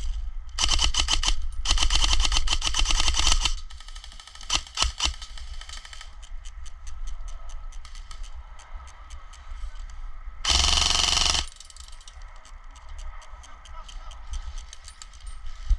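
Airsoft guns firing rapid full-auto bursts: a long burst of quick clicks in the first few seconds, a few single shots, then fainter scattered shots and another short loud burst about two-thirds of the way through.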